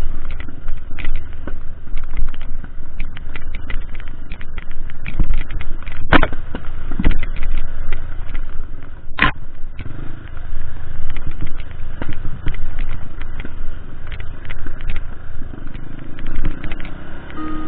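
Trail motorcycle running along a bumpy dirt single track, picked up by a camera on the bike or rider: a rough engine rumble mixed with wind on the microphone. Frequent knocks and rattles come from the bumps, with two sharp thumps about six and nine seconds in.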